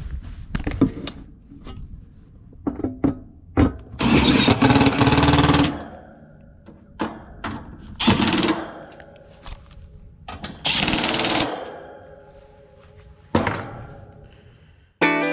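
Cordless drill driving sheet-metal screws into a heat pump condenser cabinet: four short whirring runs, each a second or two long, with clicks and knocks of the panel and tool between them. A guitar music clip starts just before the end.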